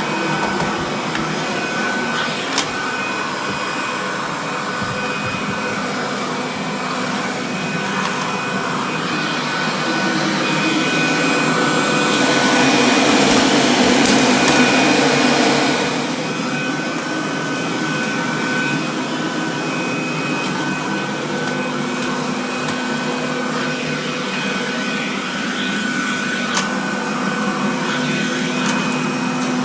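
Kirby Classic III upright vacuum cleaner running steadily with a fixed motor whine. About twelve seconds in it grows louder with a stronger rush of air for a few seconds, then settles back to its steady run.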